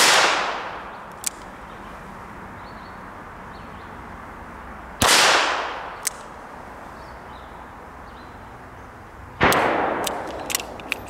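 Three shots from a Smith & Wesson 617 .22 LR revolver fired in single action, about four to five seconds apart. Each is a sharp crack with about a second of echo trailing off. Short faint clicks come between the shots.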